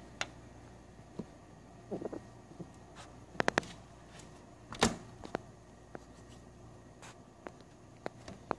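Quiet indoor room tone with a steady low hum, broken by scattered light clicks and taps of camera handling: a quick triple click about three and a half seconds in and the loudest tap near five seconds in.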